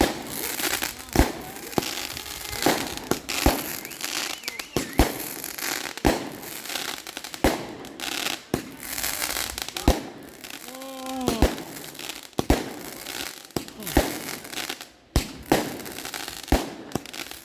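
Fireworks going off in a rapid, irregular series of sharp bangs over a steady crackle. About eleven seconds in, a brief pitched whine bends downward.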